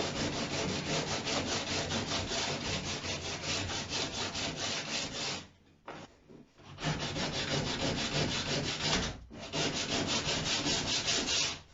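Sandpaper worked by hand on a wooden boat hull, quick back-and-forth scraping strokes at about four a second. The strokes stop twice briefly, once for about a second near the middle.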